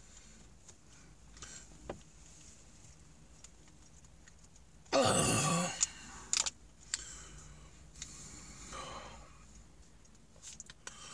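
A man straining with effort: a loud grunt about five seconds in and a softer groan a few seconds later, between faint clicks and scrapes of a screwdriver working at the stuck flat-head screw inside a Makita drill's chuck.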